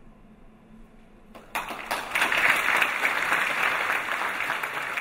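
The last chord of the choir and orchestra dies away into quiet, then about a second and a half in an audience starts applauding, a steady dense clapping.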